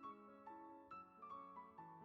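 Quiet background piano music, a melody of plucked-sounding notes changing every few tenths of a second.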